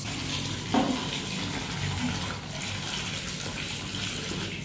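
Rice being washed by hand in a steel bowl of water: steady swishing and splashing of water, with one louder splash about a second in.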